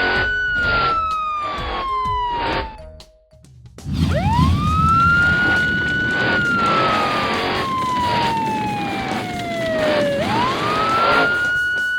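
A siren sound effect wailing over background music with a steady beat: each wail rises quickly, then falls slowly over several seconds. It cuts out briefly about three seconds in, and then two more wails follow.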